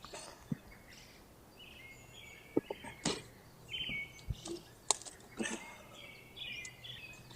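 Birds chirping, several short trilled phrases in a row, with a few sharp clicks in between.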